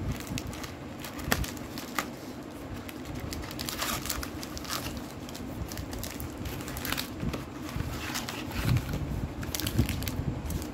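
Cardboard wafer box and foil-wrapped wafer packs being handled: irregular rustling and crinkling of foil and card with light taps.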